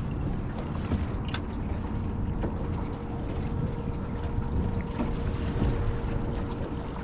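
Choppy river water slapping against a small fishing boat's hull, with wind on the microphone. A faint steady hum comes in about two and a half seconds in.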